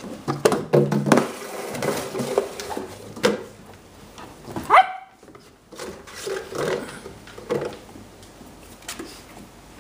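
A puppy knocks and pushes a clear plastic container around on a wooden floor, making repeated plastic knocks and crinkles. About five seconds in, a dog gives one short rising yip.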